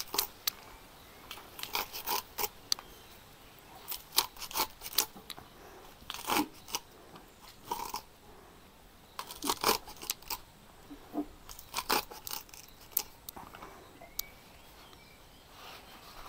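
Fresh bharangi leaves being chopped: irregular crisp crunching cuts that come in quick clusters with short pauses between them.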